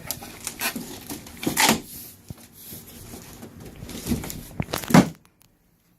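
Cardboard box and packaging of a flat-screen TV being handled: rustling and tearing with several knocks and thuds, the loudest about a second and a half in and near the end, before the sound cuts out abruptly.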